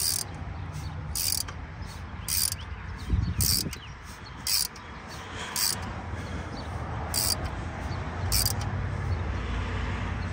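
Socket ratchet clicking in short bursts, about one swing a second, as it tightens an alternator mounting bolt. There are around eight bursts, with a pause near the end.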